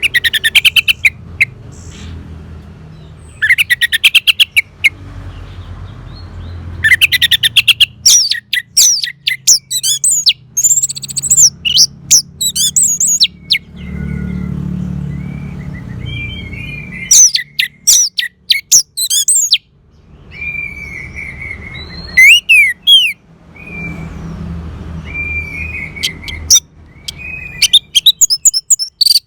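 Orange-headed thrush (anis merah) singing a varied song. It mixes fast trilled runs of repeated notes with high rising and falling whistles and lower slurred whistles, over a low background rumble.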